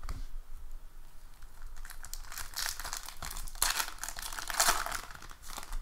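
Foil wrapper of a baseball card pack being torn open and crinkled in the hands, a dense crackle that is busiest in the second half.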